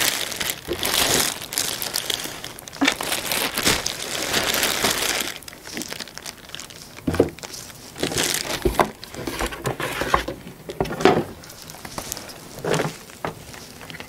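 Thin clear plastic bag crinkling as it is worked off a padded carrying case, dense for the first five seconds or so, then dropping to scattered rustles and a few sharp clicks of handling.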